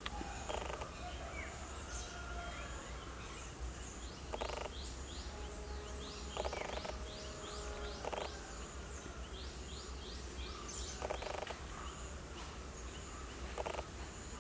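Outdoor ambience of birds calling: a short call every couple of seconds and runs of quick high chirps, over a steady low rumble.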